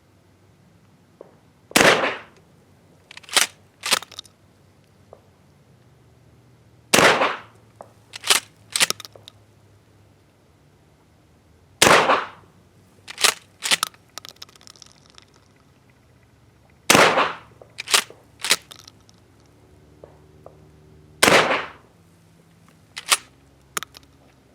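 Mossberg 590A1 12-gauge pump-action shotgun firing five rifled slugs, about five seconds apart. Each shot is followed a second or two later by the two-part clack of the pump being racked back and forward to chamber the next round.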